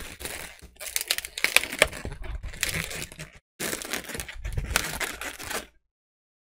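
Inflated latex twisting balloons squeaking and rubbing against each other and the hands as they are twisted and wrapped together. The sharp squeaks and crinkles come in stretches, break off briefly about halfway and stop near the end.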